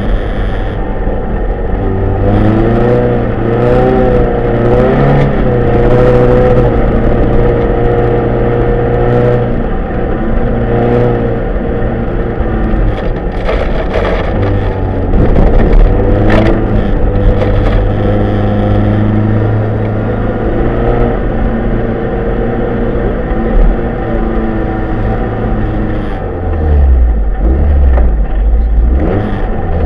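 Rally car's engine heard from inside the cabin at speed on a snowy stage, revving up and down again and again as the driver shifts and lifts through the corners. A burst of knocks and clatter from the car striking the rough, rutted snow comes around the middle, and a deep pulsing engine note near the end.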